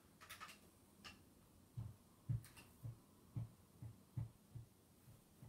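Soft, dull taps of a paintbrush dabbing paint onto paper on a table, about two a second and slightly uneven, starting about two seconds in. A few faint light clicks come before them.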